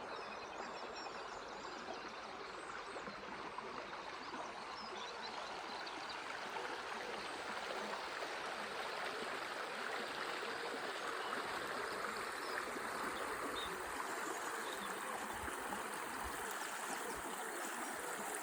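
Shallow river water flowing and babbling steadily, growing a little louder partway through, with faint bird chirps over it in the first few seconds.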